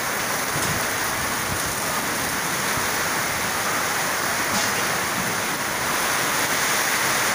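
Heavy rain pouring down onto corrugated metal roofs: a steady, dense hiss.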